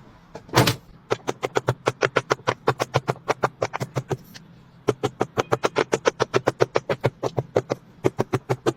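Silicone poppet bubbles being pressed in quick succession, a fast even run of sharp pops at about five or six a second, with a short break partway through.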